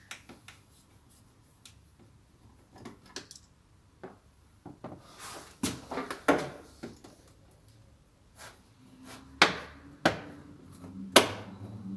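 Hands and a tool working on a Kia Sportage's interior trim panels during disassembly: scattered clicks and knocks, a scraping rustle about five to seven seconds in, and three sharp clicks near the end.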